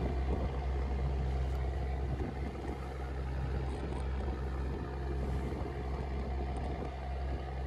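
Fishing boat's engine running steadily under way, a constant low drone over an even rushing noise.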